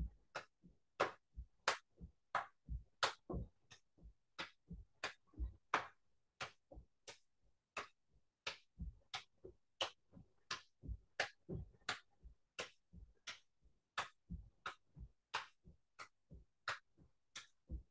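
Hands patting alternate knees in a cross-crawl march: an even run of short, light taps, about two to three a second.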